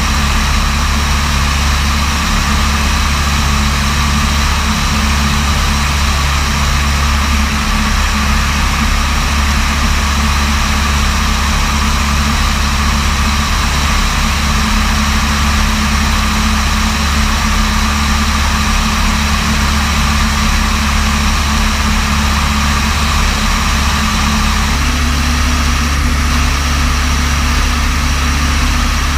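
Small propeller aircraft's piston engine droning steadily in flight, heard from on board. Its tone shifts slightly about 25 seconds in.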